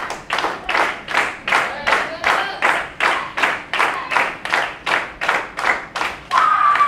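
Audience clapping in unison, a steady rhythm of about three claps a second. Near the end a loud, high held shout cuts across the clapping.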